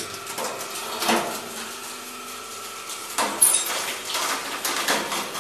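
A hydraulic press bearing down on a stack of glass sheets: a steady hum with scattered cracks and creaks from the glass as it gives under the load, the sharpest cluster of cracks a little past three seconds in.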